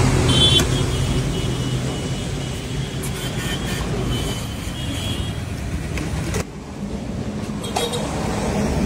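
Steady road traffic, car engines and tyres passing close by.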